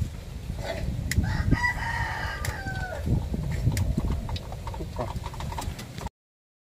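A rooster crowing once, starting about a second in and lasting about two seconds, its note falling at the end, over a steady low rumble. All sound cuts off suddenly near the end.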